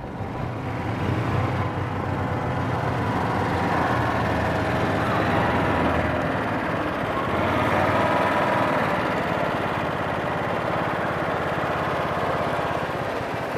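Small utility vehicle's engine running steadily at driving speed, with the rush of tyres rolling over a gravel road.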